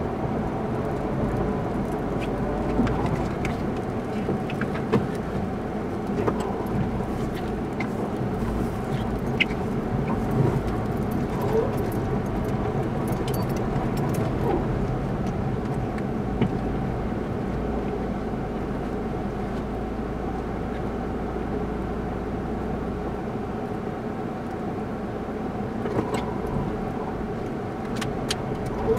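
Car running, heard from inside the cabin: a steady engine and road hum, with scattered small clicks and creaks.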